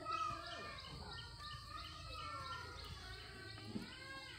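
Outdoor ambience with birds chirping: short high chirps repeat about three times a second, and there are longer calls that bend in pitch. Children's voices come and go in the background, loudest just after the start.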